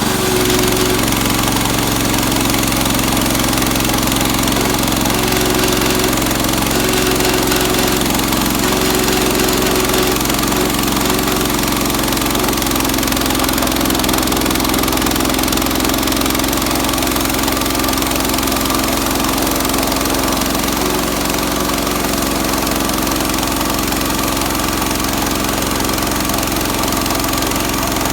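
Sawmill engine running steadily while the mill slabs a red oak log.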